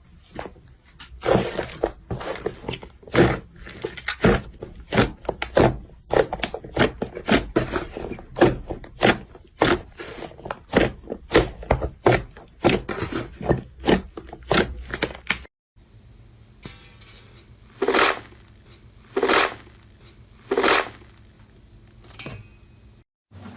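Slime being squeezed and pressed by hand, giving a dense run of sharp crackling pops. After a cut partway through come three short separate squishes about a second and a half apart.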